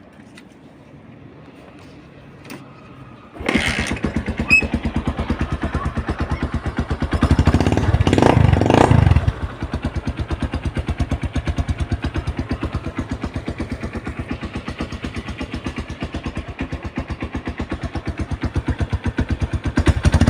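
Honda TMX 150 Supremo's single-cylinder four-stroke engine starting about three seconds in through a newly fitted aftermarket 'chicken pipe' exhaust. It is revved twice about four seconds later, then idles with a steady, rapid exhaust beat.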